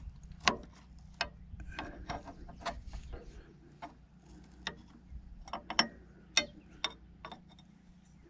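A steel wrench clicking against a nut as it is fitted, turned a short way, lifted off and refitted over and over to thread the nut on: irregular sharp metal clicks, one or two a second.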